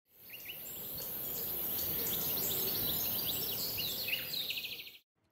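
Birds chirping and tweeting over a steady high insect hiss, a nature-ambience track. It fades in over the first second and cuts off abruptly shortly before the end.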